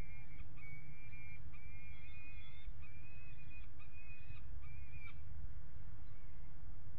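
Juvenile peregrine falcon giving a run of drawn-out, even-pitched wailing calls, about six in a row with short gaps, stopping about five seconds in; a steady low rumble runs underneath.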